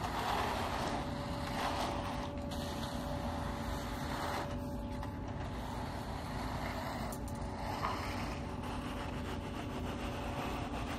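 A machine engine running steadily with a faint hum, over short patches of scraping as wooden screed boards are drawn across wet concrete.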